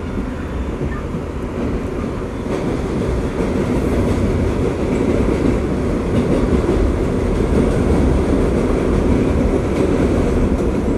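Running noise of an R62A subway car heard from inside the car, a steady low rumble of wheels on rail that grows louder a few seconds in and stays loud.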